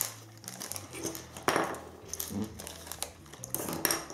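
Small plastic parts bag crinkling in the hands in several rustling strokes, loudest about a second and a half in, as screws and metal standoff columns are tipped out. Light clicks of the small metal parts landing on the wooden table come near the end.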